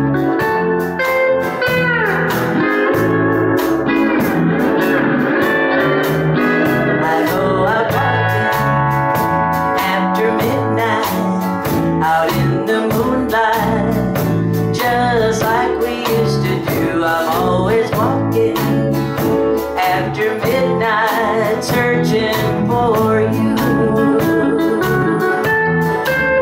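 Live country band playing a mid-tempo song: a pedal steel guitar slides over electric and acoustic guitars and drums keeping a steady beat, with a woman singing lead.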